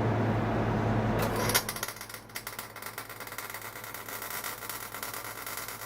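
Electric arc welder crackling over a steady electrical hum as weld is laid into slots cut in transaxle gears. The arc stops sharply about a second and a half in, leaving fainter irregular crackling over the hum.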